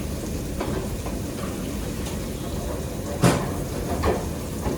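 Kitchen background: a steady low rumbling noise with a few sharp clanks, the loudest about three seconds in and another a second later.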